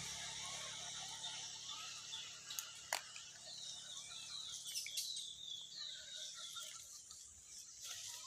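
Faint outdoor ambience: a passing vehicle's rumble fades away at the start, then a quick run of high chirps comes in the middle, with a few light clicks.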